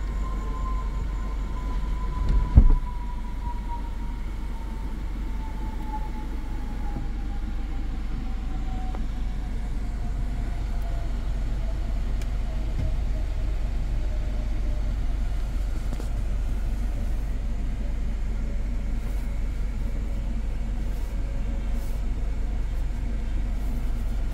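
Steady low rumble of a 2024 Hyundai Kona N Line's cabin on the move, with a faint whine slowly falling in pitch. A single thump about two and a half seconds in.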